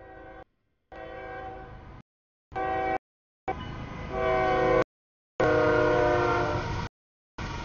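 CSX freight locomotive's horn sounding for a grade crossing. Four blasts, the second one short, with dead-silent gaps between them. The blasts grow louder as the locomotive reaches the crossing, and the last long one is loudest and sags slightly in pitch. Near the end comes the rumbling noise of the train passing.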